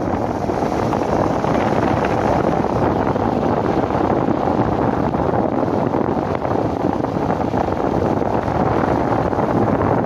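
Steady road and wind noise of a car driving on a wet road, heard from inside the car.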